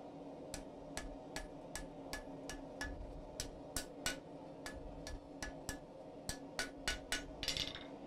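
Small ball peen hammer striking a hot round bar over the edge of an anvil: about twenty light, quick blows at roughly three a second, bending the bar down to start a hook. A short rattle comes near the end.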